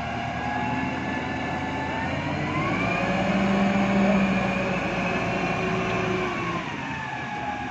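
JCB backhoe loader's diesel engine working, revving up about two and a half seconds in, holding high revs, then easing back down near the end.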